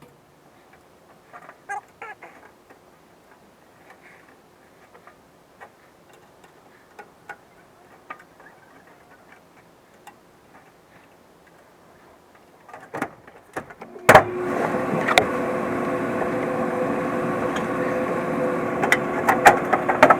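Light clicks and handling sounds of wiring work, then about fourteen seconds in the heating and air-conditioning system starts up suddenly and runs with a steady whir and hum, as power comes back on at the zone board. A few sharp clicks sound near the end.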